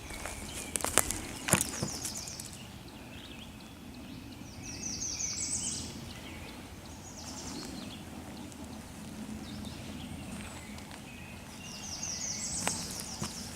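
Woodland songbird song: a fast, high trill of rapid repeated notes, heard twice about eight seconds apart, with a few sharp snaps or clicks near the start.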